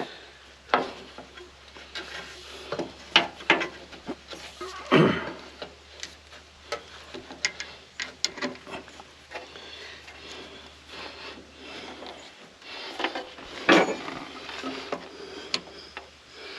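Scattered clinks, knocks and scraping of hands and tools working a new hose fitting into place on a skid steer, irregular, with some stronger knocks about five seconds in and near fourteen seconds.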